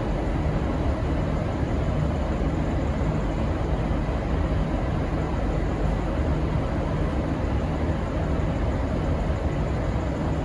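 Diesel locomotive engine running steadily with a low hum, most likely the V/Line N class locomotive waiting at the platform. No horn sounds.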